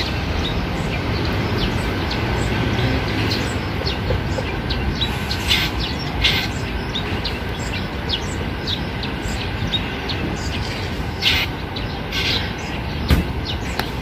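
Wild drongo calling from a tree: short, sharp notes, some in quick clusters about midway and again near the end, over a steady background noise.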